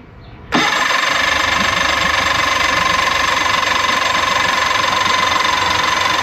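Electric starter cranking the 1973 Johnson 65 hp two-stroke outboard, kicking in sharply about half a second in and then running as a steady whine without the engine catching. The mechanic takes this for a fuel delivery problem.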